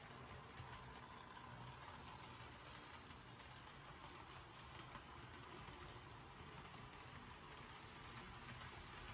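Faint, steady running of HO-scale model trains, a low motor hum with light irregular clicking of wheels on the track.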